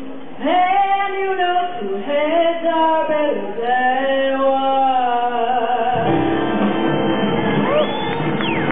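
A woman singing the closing phrases of a song with long held notes. About six seconds in, an audience breaks into cheering and whistling.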